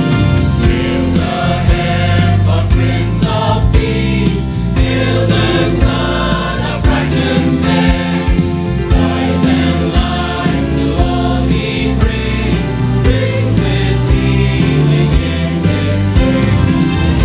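Choir singing a Christmas song over a band accompaniment with bass and a steady drum beat.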